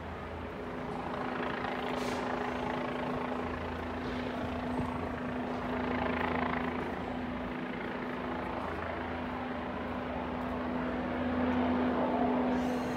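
Steady engine drone with a constant hum, swelling a little about six seconds in and again near the end.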